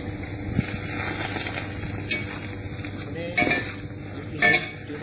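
Ground spice paste with water sizzling in hot mustard oil in a pan, stirred with a spoon, with a couple of louder scrapes of the spoon against the pan near the end.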